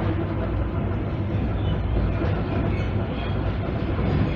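Ride noise inside a passenger car of an ER9P electric multiple unit running at speed: a steady low rumble from the running gear on the track.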